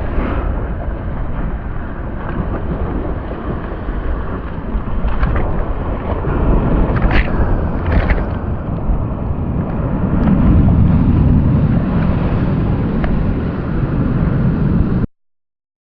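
Steady, rumbling noise, heaviest in the low end, with a few brief sharper sounds about five, seven and eight seconds in; it cuts off suddenly near the end.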